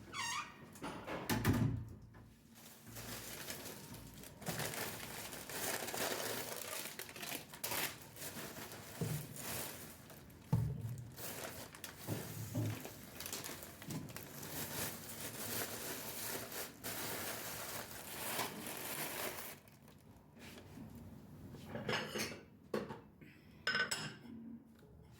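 Irregular clinking and knocking of hard objects being handled, like dishes and cutlery, with rustling between the strokes. It thins out near the end, leaving a few sharp clicks.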